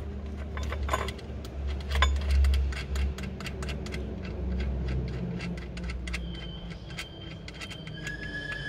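Light metallic clicks and clinks of hand tools and metal parts as the idler pulley is unbolted and taken off a Mercedes-Benz M111 engine's belt drive.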